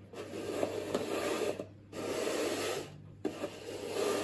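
Plastic disc cones being slid and scraped across a tile floor as they are shuffled, in three stretches of scraping of about a second each.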